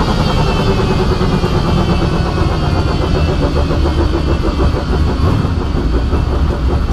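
Ford Mustang drag car's engine heard from inside the cockpit, running at low revs with a quick, lumpy pulse while the car rolls slowly after its pass. Its pitch eases down slightly early on.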